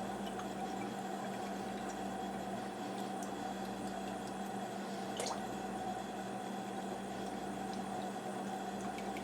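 Faint liquid sounds over a steady kitchen hum, as the pot of broth simmers and soy sauce is spooned in. One faint click about five seconds in.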